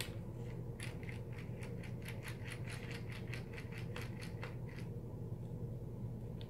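Phillips screwdriver backing out a small screw that holds a laptop LCD panel in its lid: a quick run of light, even clicks, about five a second, that stops nearly five seconds in.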